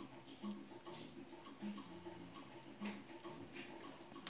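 Crickets chirping in a steady, fast, even pulse of high notes. Faint ticks of hands handling wire and tools sound now and then.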